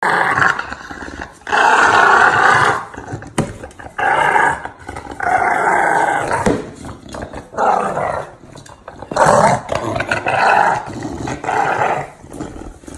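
English bulldog growling in repeated bursts of about a second each while playing tug-of-war with a plastic basket.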